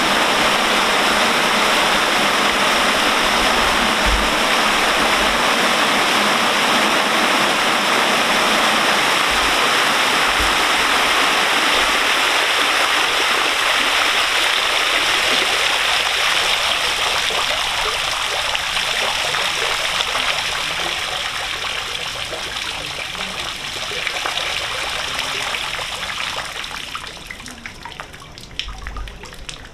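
Water pouring in a curtain off the Tobashi wooden aqueduct bridge and splashing into the canal below: a loud, steady rush. Over the second half the flow dwindles and the sound fades to thin trickles and scattered drips as the water stops running.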